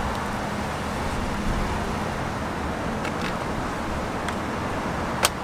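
Steady outdoor traffic noise with a faint low hum, broken by a few light clicks and one sharp click about five seconds in, as of things being handled inside a car.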